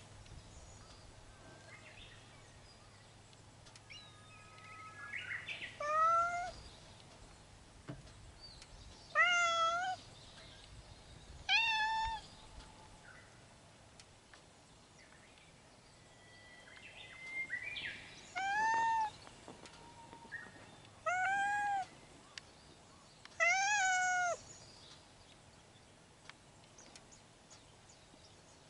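A cat meowing six times, each a short call that rises and falls in pitch, spaced a few seconds apart with a longer gap in the middle.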